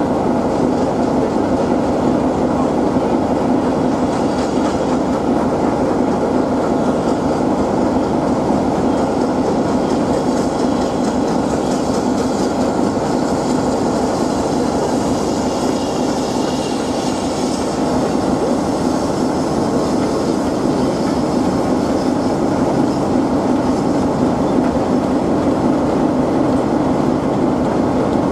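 BR Standard 4 2-6-4T steam tank locomotive approaching and passing with a train of coaches, the carriage wheels clattering over the rail joints as they go by.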